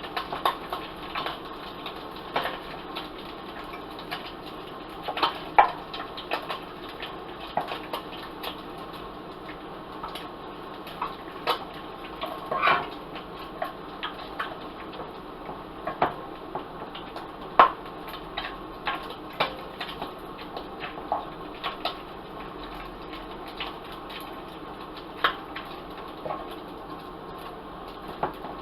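Vegetables frying in oil in a pan: a steady sizzle with irregular crackles and pops.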